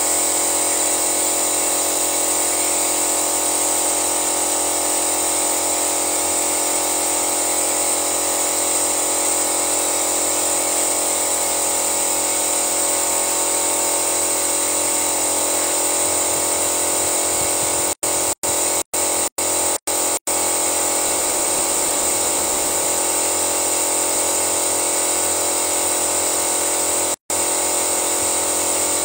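Steady motorised whine of an engine-flush machine's pump running and circulating fluid through the hoses and canister. The sound cuts out to silence for brief moments several times in the last third.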